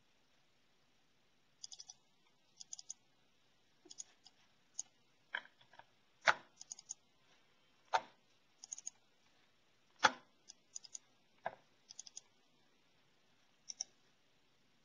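Computer mouse clicking: quick double clicks repeated every second or so, with a few louder single clicks among them.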